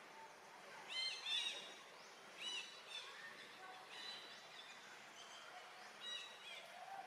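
Short, high-pitched chirping calls, each rising then falling, several in quick succession with the loudest pair about a second in, over a faint steady background hiss.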